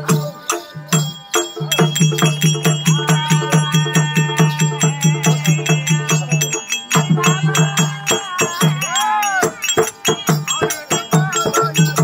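Therukoothu folk-theatre music: a drum beating a fast, even rhythm with jingling metal percussion, under a sustained melody line. The drum drops out briefly about seven and nine seconds in, and a short sliding melodic phrase comes in about nine seconds in.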